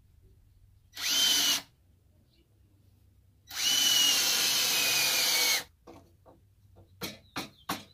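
Cordless drill driving screws into a pine 2x4 frame in two runs: a short burst about a second in, then a longer run of about two seconds, its whine rising as it spins up and sinking slowly as the screw bites. A couple of short sharp knocks come near the end.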